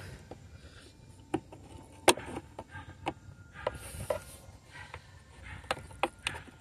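A flat screwdriver prying and scraping at a fastener on a car's intake housing: scattered sharp clicks and taps, the loudest about two seconds in, with a brief scrape around four seconds.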